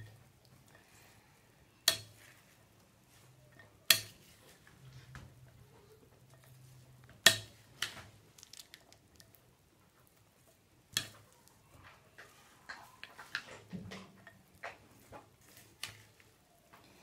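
A spoon stirring a salad of chopped fruit, boiled potato and corn in a glass bowl, knocking sharply against the glass a handful of times, with a quicker run of lighter taps and scrapes near the end.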